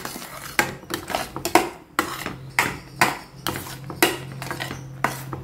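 Slotted metal spatula scraping and stirring thick banana-and-jaggery halwa in a stainless steel pot, about two strokes a second, with a steady low hum behind. The halwa is being stirred until it thickens and comes away from the sides of the pot.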